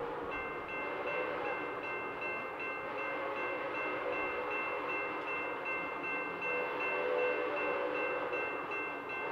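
Railroad crossing bell starting up just after the signals activate and dinging steadily in rapid repeats. Under it, the chime whistle of Nickel Plate Road 765, the whistle of scrapped sister locomotive 760, blows and grows louder about two thirds of the way in.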